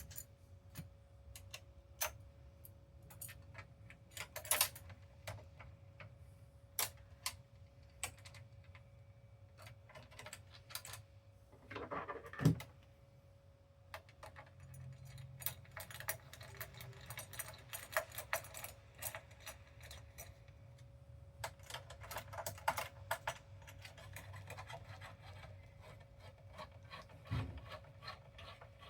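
Irregular clicks and light metallic clatter of PS5 console parts being handled and fitted back together, with a heavier knock about halfway through, over a faint steady hum.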